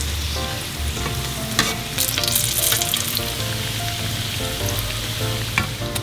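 Breaded rolls deep-frying in a pan of hot oil: a steady sizzle, with a few sharp clicks along the way.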